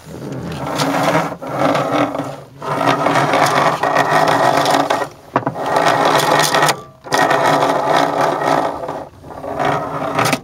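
Hyundai Elantra front seatbelt retractor grinding as the webbing is worked in and out, in about six runs with short breaks between. The grinding comes from a faulty retractor that the owner says sometimes fails to lock.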